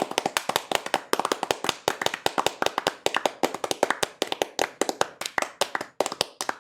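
Rapid, uneven hand clapping, about eight to ten sharp claps a second, recorded close up as raw material for a homemade applause sound effect.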